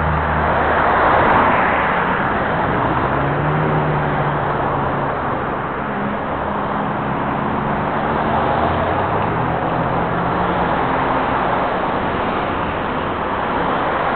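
Road traffic noise from cars passing on a multi-lane street: a steady rush of tyres and engines, with low engine hums that come and go as vehicles go by.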